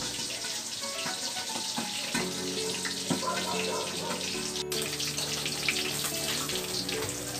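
Dried fish frying in oil in a wok on a gas stove: a steady sizzle with small crackles and pops of spattering oil.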